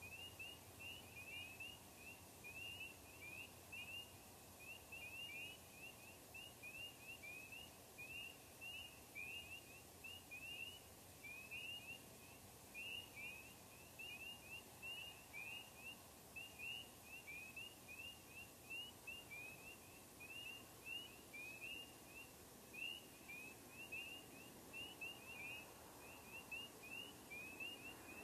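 A faint chorus of frogs: many short rising peeps, several a second and overlapping, over a low background rumble.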